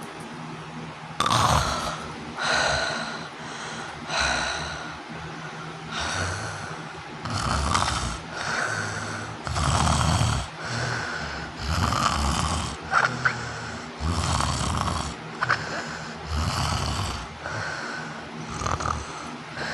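Loud snoring of a woman with obstructive sleep apnea. It starts about a second in after a quiet pause and goes on in quick, irregular bursts about once a second.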